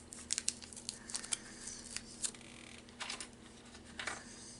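Quiet handling sounds: light crinkling of a plastic snack package and small sharp clicks as plastic bag clips are put on.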